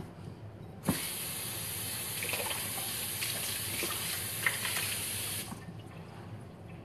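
Kitchen tap turned on about a second in and running steadily into the sink for about four and a half seconds while a dirty cup is rinsed out, with a few light knocks, then shut off.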